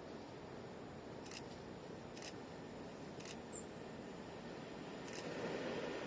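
Faint camera shutter clicks, about one a second. A low rumble begins to build near the end.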